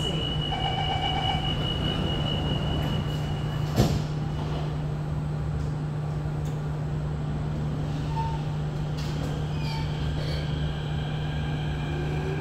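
Interior of an SMRT CT251 metro train: a steady low hum of the car's running equipment, with a thin high tone that stops at a single sharp knock about four seconds in. Near the end the traction motors begin a rising whine as the train starts to move off.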